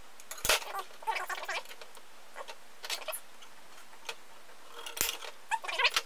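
Small tools and metal parts being handled on a workbench: a few sharp knocks and clicks, one about half a second in and two more near the end, with short spells of light rattling and scraping in between.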